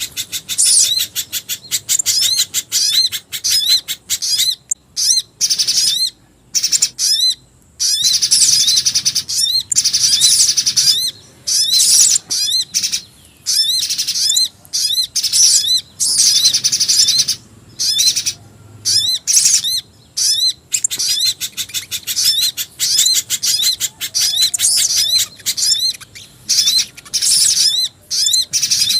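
Bird-lure recording mixing the calls of the streaked spiderhunter (pijantung gunung), sogon and jingjing batu (black-winged flycatcher-shrike): dense runs of rapid high chirps, broken every second or two by short pauses. It is played to draw small birds in.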